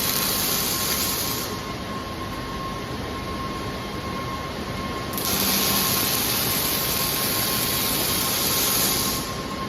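Robotic welding noise: a steady, loud hiss that cuts off about a second and a half in, comes back about five seconds in and stops again near the end, over a steady lower noise with a faint constant tone.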